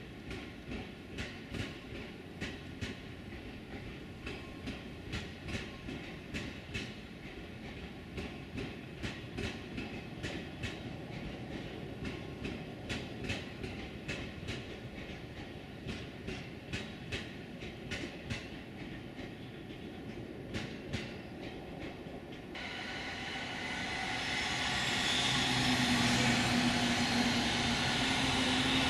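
Train running past on the rails, its wheels clicking in a steady rhythm of about two clacks a second over the rail joints. About three-quarters of the way through, a louder rushing noise builds up with a low steady hum.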